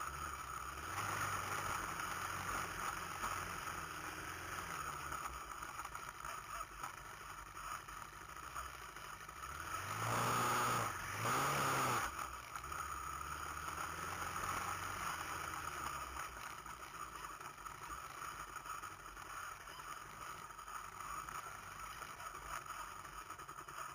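Honda TRX700XX ATV's single-cylinder four-stroke engine running low and steady as it crawls over rocks, with two short revs about ten and eleven seconds in.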